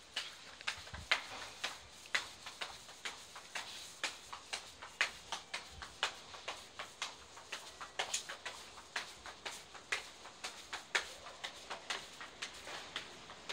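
Footsteps: shoes tapping on stair treads as someone walks briskly down a flight of stairs and onto a concrete platform, a steady run of sharp taps.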